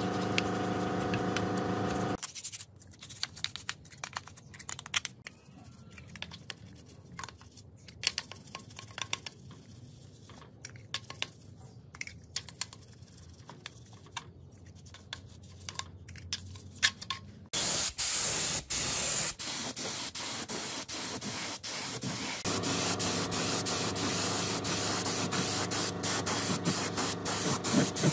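A machine hum stops about two seconds in. Then a paintbrush scrubs liquid over cast engine parts: soft scratching with small clicks. About two-thirds of the way through, a compressed-air paint spray gun starts hissing steadily, and a motor hum joins under it near the end.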